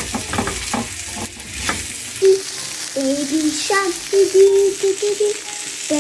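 Asparagus and garlic sizzling in a non-stick frying pan, stirred with a silicone spatula that clicks and scrapes against the pan. About two seconds in, the sizzling gives way to a child's voice singing a run of short held notes.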